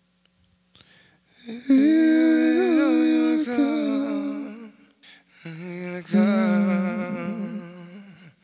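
A voice humming in two long, wavering phrases. The first begins about a second and a half in, and the second follows a short break about five seconds in.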